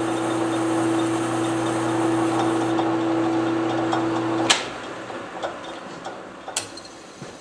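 Metal lathe running with a steady motor hum and whine. About four and a half seconds in, a sharp click, and the hum stops as the spindle coasts down. Another click comes near the end.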